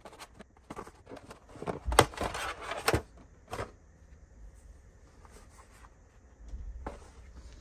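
Handling noise from unpacking a boxed neckband speaker: scattered clicks and knocks of the cardboard presentation box and its insert tray, with a dense burst of rustling and knocks about two to three seconds in.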